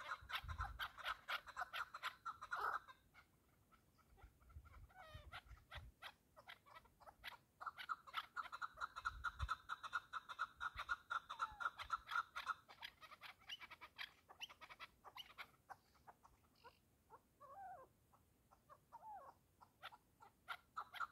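Partridge calling in fast runs of clucking notes. One run stops about three seconds in, a second runs from about eight to thirteen seconds, and a few scattered calls follow.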